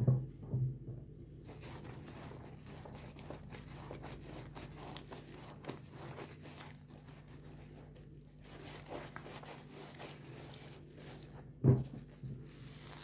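A foam sponge being squeezed and worked with soap in sudsy water: wet squishing with a fine crackle of lather. Two dull thumps stand out, one at the start and one near the end.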